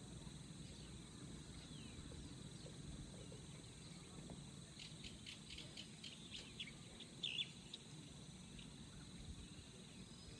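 Faint outdoor ambience: insects trilling steadily at a high pitch, with a few short bird chirps in the middle, the loudest about seven seconds in.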